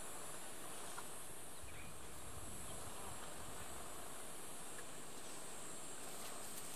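Steady high-pitched insect buzzing over a low, even background noise.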